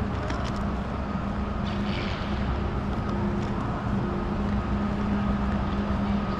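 Steady mechanical hum and rushing air of a large terminal hall's ventilation, with a low drone that fades in and out every second or so.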